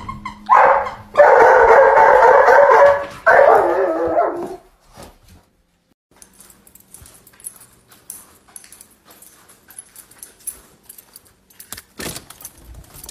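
A dog vocalizing loudly in three drawn-out stretches over about four seconds, starting about half a second in. After that there are only faint clicks and rustles.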